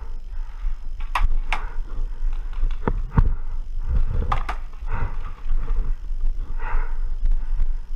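Paintball markers firing: several sharp pops, mostly in quick pairs, in the first half, over a steady low rumble.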